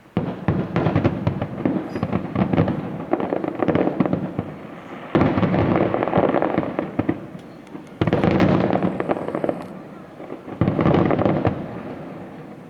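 Aerial fireworks going off in rapid volleys: a dense crackle of many bangs that starts suddenly, with new surges about five, eight and ten and a half seconds in, and fades away near the end.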